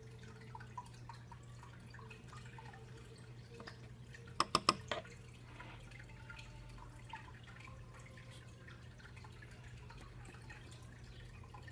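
Low steady hum with faint scattered ticks, and a quick run of about four sharp clicks about four and a half seconds in.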